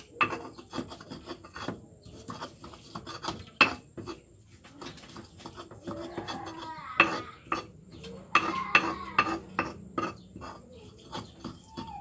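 Pestle (ulekan) grinding ingredients into a paste in a cobek mortar: irregular scraping rubs punctuated by sharp knocks of the pestle against the mortar.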